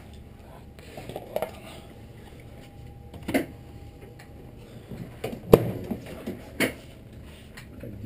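A handful of sharp knocks and clinks from handling things at a microwave oven, including its door being shut. The loudest knock comes about halfway through.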